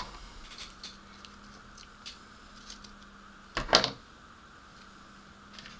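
Handling noises at a workbench: a few light clicks and taps, with one short louder clatter about three and a half seconds in, over a faint steady hum.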